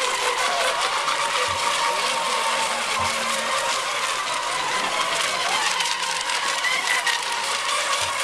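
Several electric RC racing boats running flat out: a steady high motor whine over a hiss, with pitches sliding up and down as the boats pass and turn.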